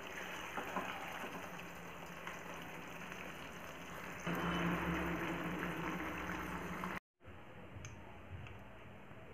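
Thick curry simmering and bubbling in a nonstick pan on an induction cooktop, stirred with a spatula, with a steady low hum underneath. It gets louder about four seconds in and cuts off abruptly near seven seconds, leaving faint room tone with a couple of light clicks.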